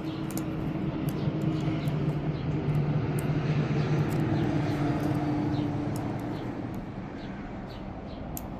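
A steady engine drone that swells to a peak a few seconds in and then fades, as of a vehicle or aircraft passing, with faint light clicks throughout.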